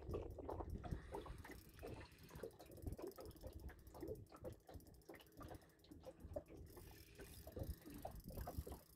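Fishing reel being wound in with a small fish hooked on light line, giving a faint, rapid, irregular clicking from the reel's gears.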